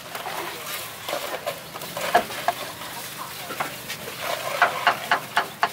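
Metal cooking utensils clinking and scraping at a street-food stall, with short sharp clacks: a loud one about two seconds in and several close together near the end.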